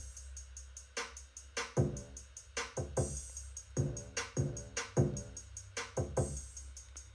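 Programmed drum-machine beat playing back at 150 BPM: fast, even hi-hat ticks, a bassy kick whose pitch falls on each hit, and snare hits. The kick part was just played in on the pads and quantized to the grid.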